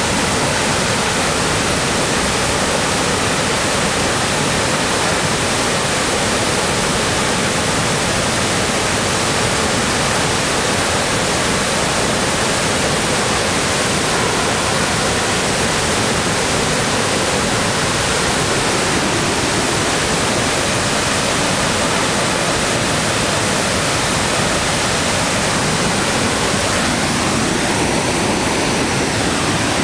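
Loud, steady rush of a tall waterfall on the Pigeon River plunging into its gorge, an even, unbroken roar of falling water.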